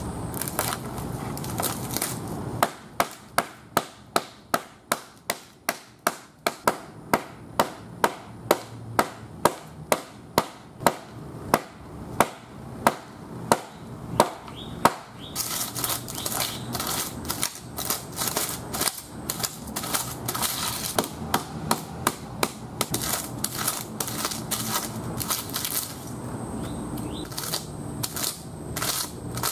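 Claw hammer striking a water-soaked iPad's shattered glass screen on asphalt: a steady run of sharp blows about two a second, then a quicker patter of lighter, crunchier strikes in the second half.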